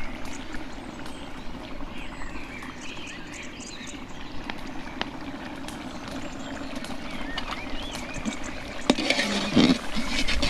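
A pot of beef and spices cooking, bubbling steadily, with faint birds chirping behind it and a few knocks and a clatter near the end.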